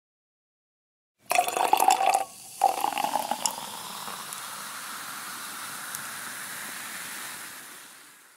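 B Fizz, a fizzy malt-flavoured fruit drink, poured from its bottle into a small clear cup: a splashing pour starting about a second in, a brief break, then a second pour. The foam then fizzes with a steady hiss that fades away near the end.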